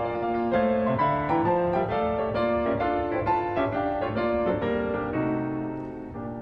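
Steinway grand piano playing a quick run of notes, getting quieter near the end.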